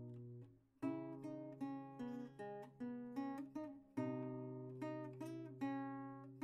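Background music: an acoustic guitar picking a slow melody of single plucked notes, each ringing out and fading.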